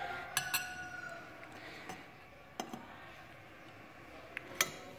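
Metal cutlery clinking against a dish a few times: a pair of sharp clinks near the start, two more at about two and a half seconds, and another near the end.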